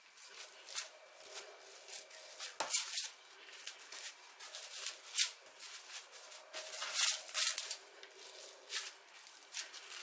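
Plastic cling film crinkling and rustling in irregular crackles as hands press and shape a mound of minced meat on it.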